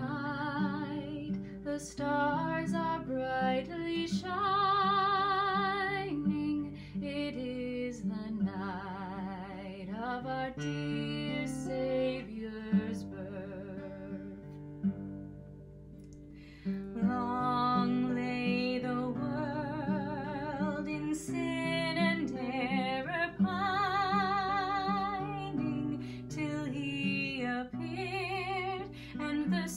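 A woman singing a slow song with vibrato to an acoustic guitar. The voice pauses for a few seconds around the middle while the guitar plays on quietly, then comes back in.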